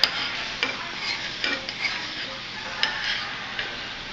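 A spoon stirring a saucepan of bubbling liquid, clicking and knocking against the pan about six times over a steady sizzling hiss.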